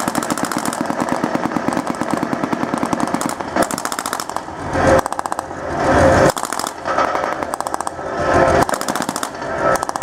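Sustained rapid machine-gun fire from the armoured vehicles in an assault demonstration, a dense run of shots with no pause. About halfway through and again near the end it swells into louder rushes of noise.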